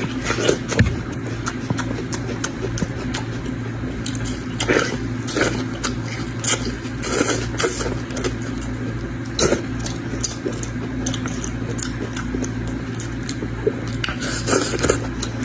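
Close-miked eating sounds: a person biting and chewing spicy goat belly, with irregular wet smacks and crunches over a steady low hum.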